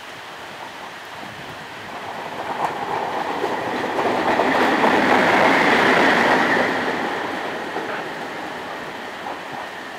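Electric locomotive running through at speed. It grows louder, passes at its loudest about five to six seconds in, then fades, with a steady high whine over the rumble.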